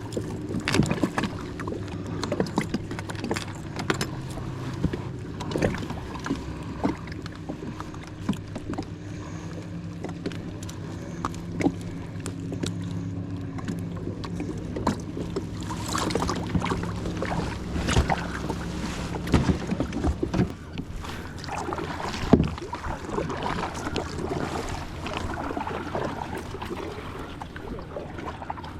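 Fishing gear being handled aboard a kayak: scattered knocks and clicks against the hull and tackle, over a steady low hum that fades out about two-thirds of the way through.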